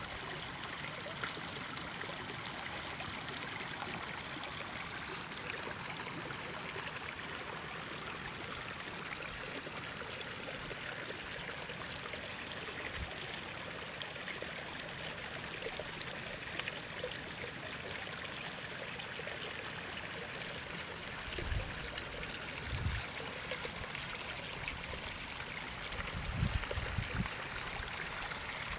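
Shallow mountain stream running over rocks and through grass, a steady rushing and trickling. A few low bumps come in over it late on.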